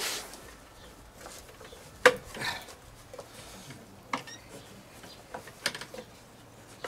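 A few scattered clicks and knocks with light rubbing as hands work the self-drive belt off its pulley on a lawnmower's gearbox, the loudest click about two seconds in.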